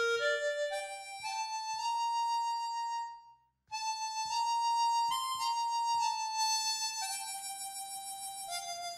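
Harmonica, cupped in both hands, playing a slow melody of held notes. The melody climbs over the first second, breaks off briefly about three seconds in, then resumes and steps gradually lower.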